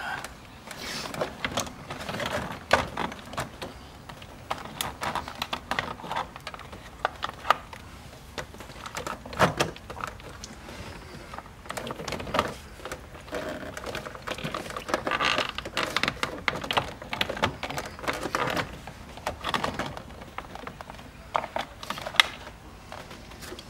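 Irregular clicks, taps and light rustling of plastic interior trim being handled and pressed into place: a C5 Corvette's center console bezel being seated around the shifter.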